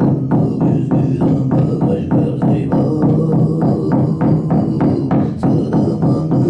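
Large hide shaman's frame drum struck with a beater in a steady, fast pulse of about four to five beats a second, under a low, sustained throat-sung drone.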